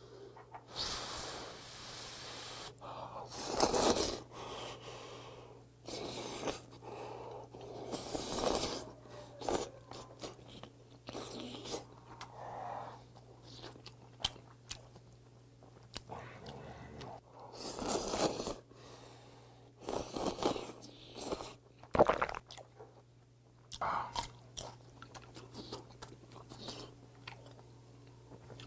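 A person eating hot kalguksu noodles: several loud slurps spread through, with wet chewing in between.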